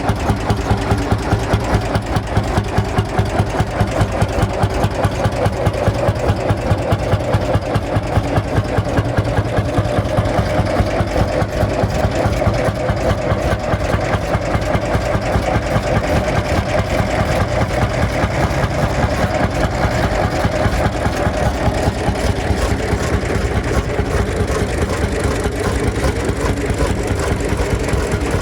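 Single-cylinder two-stroke hot-bulb engine of a Lanz Bulldog-type tractor running at a slow idle, a steady even beat of a few strokes a second.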